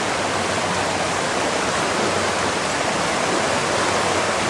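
Steady, even rush of fast-moving floodwater pouring over, running unchanged.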